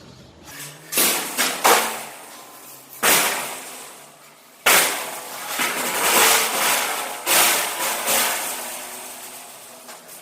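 Steel clanging: about half a dozen loud, unevenly spaced metal strikes, each ringing out over a second or so.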